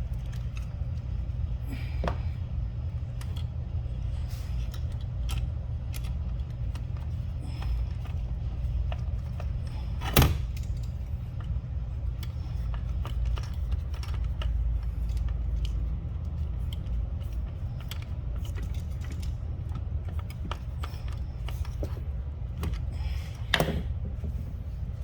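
Hand tools and small metal parts clinking during work on an e-bike, with scattered light clicks and two sharper knocks, the loudest about ten seconds in and another near the end, over a steady low hum.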